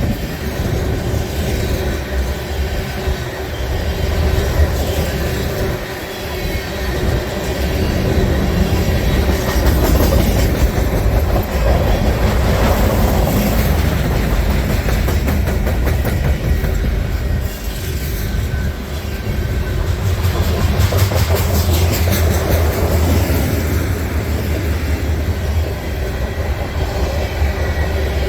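Freight cars of a long mixed manifest train rolling past at speed: a steady low rumble with steel wheels clicking rapidly over the rail joints.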